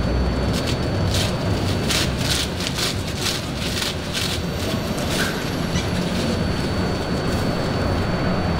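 Elevated subway train running on the overhead steel structure: a steady low rumble, with a run of sharp metallic clacks during the first half.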